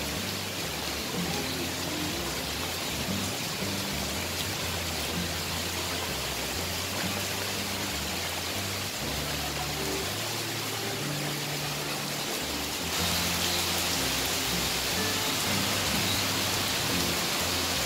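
Heavy monsoon rain falling steadily, a dense hiss, with background music of low, slowly changing notes laid over it. The rain grows louder about two-thirds of the way through.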